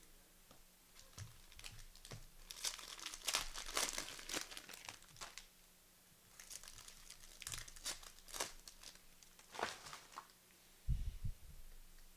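Plastic trading-card pack wrapper crinkling and tearing as it is ripped open by hand, in two spells of sharp crackles. A short low thump comes about eleven seconds in.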